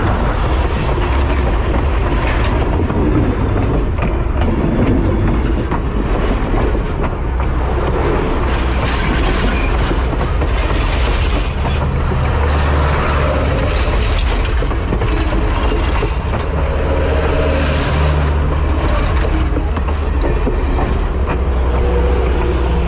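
Passenger cars of a steam-hauled train rolling past close by: a steady, loud rumble of steel wheels on the rails.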